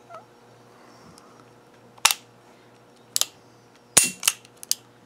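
Smith & Wesson Model 627 revolver's action being worked by hand: a series of sharp metallic clicks as the hammer is cocked and released, starting about two seconds in, some in quick pairs.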